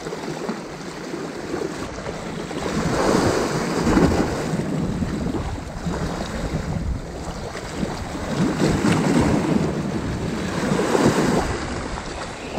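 Sea swell washing against the rocks at the water's edge, rising and falling in surges a few seconds apart, with wind rumbling on the microphone.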